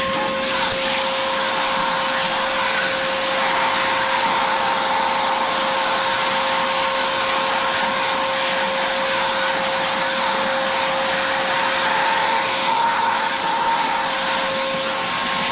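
Vacuum cleaner running steadily, sucking up the dust and shavings from freshly drilled holes, with a constant motor whine over the rush of air.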